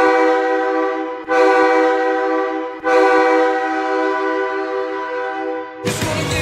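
Hockey arena goal horn: a pair of United Pacific 46129 horns sounding together in a chord, three blasts, two short and one long of about three seconds. Goal music starts just before the end.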